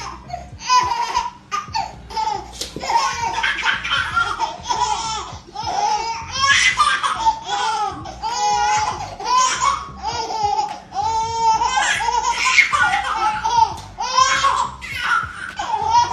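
A baby laughing in a long run of high-pitched giggles and belly laughs, short bursts coming about twice a second.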